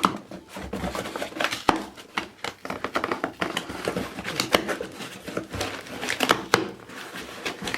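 Cardboard shipping box being pulled and torn open by hand: a busy run of rustling with many sharp cracks and snaps.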